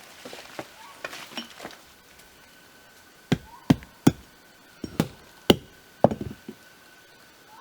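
Axe chopping into a rotten tree trunk: after some soft scraping and rustling, a quick, uneven string of about seven sharp blows into the wood.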